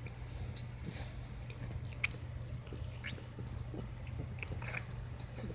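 Sleeping dog's soft mouth noises: scattered wet clicks and smacks like chewing, over a steady low hum.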